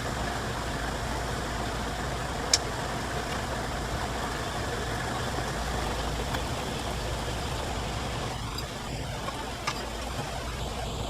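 A machine running steadily with a low hum, with a sharp click about two and a half seconds in and a fainter one near the end.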